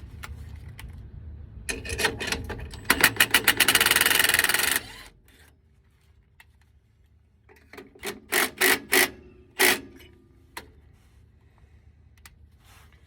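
Impact wrench driving an exhaust band-clamp nut: a run of rapid hammering about three seconds in that lasts about two seconds, then, after a pause, about five short bursts.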